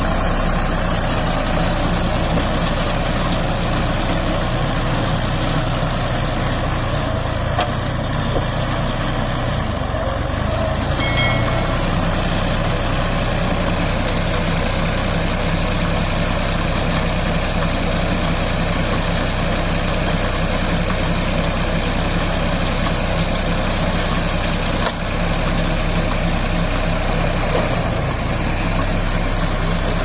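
Deutz-Fahr Agromaxx 4050E tractor engine running steadily under load while it drives a round straw baler, the baler's rollers and chains adding a continuous mechanical clatter over the engine hum.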